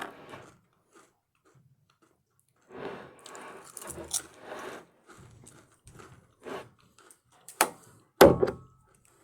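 A mouthful of Honey BBQ Sun Chips being crunched and chewed. The irregular crunches start about two and a half seconds in, and two sharp knocks come near the end.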